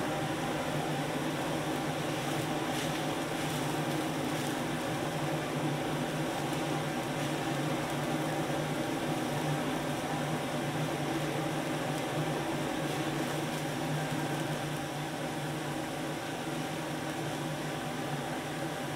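Steady roar and hum of a commercial gas wok range and kitchen extraction, with water boiling in a wok.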